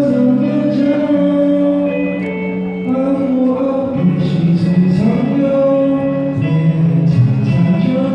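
A man singing a Mandopop song live over backing music through stadium loudspeakers, with long held notes.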